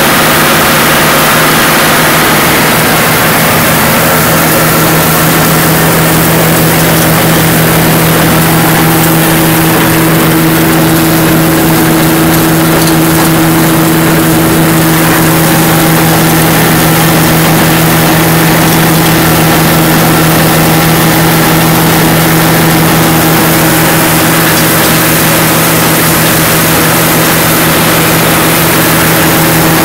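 Tractor-driven forage blower running at steady speed as chopped hay is fed in from a forage wagon and blown up the pipe into a silo, during silo filling. Loud and unchanging: a constant mechanical hum under a steady hiss of air and hay.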